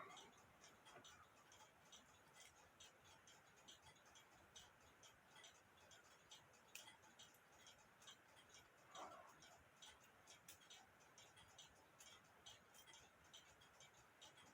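Near silence with a clock ticking faintly and steadily, and one soft, brief handling sound about nine seconds in.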